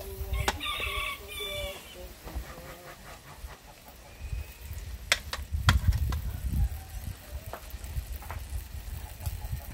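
A chicken clucking for about a second and a half near the start. Low rumbling noise runs underneath and is loudest in the middle, with a few sharp clicks.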